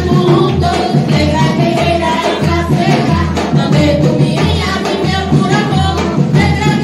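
Candomblé ritual song: group singing over drums beating steadily about twice a second.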